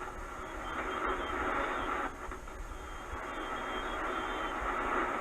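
Static and band noise from a Yaesu FTdx10 HF transceiver's receiver on the 75-meter band, heard between transmissions. It is a steady hiss held within the narrow voice passband, dipping briefly about two seconds in, with a few faint thin tones above it.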